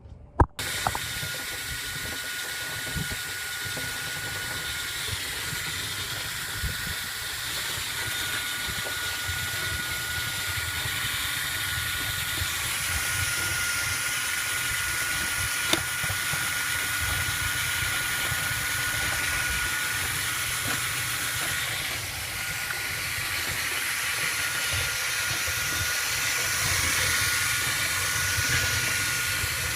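A motor switches on about half a second in and runs steadily, with a rushing hiss of moving air and a thin steady whine.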